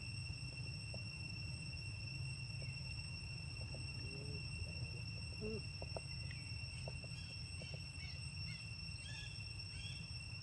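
Quiet background: a steady high-pitched whine over a low rumble, with scattered soft clicks and, in the second half, faint short chirps.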